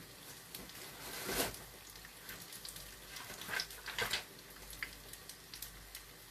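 Faint handling sounds: a plastic bag being rummaged and a notebook in a hard cover taken out and opened, with a few brief rustles and clicks, the clearest about a second and a half in and again around three and a half to four seconds in.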